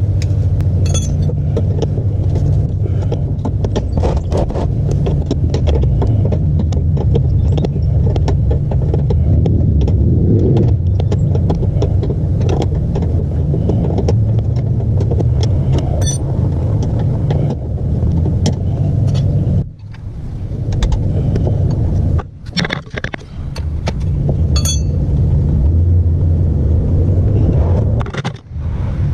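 Wrench and metal fittings clicking and clinking while the clutch line bolts are loosened, over a loud steady low rumble.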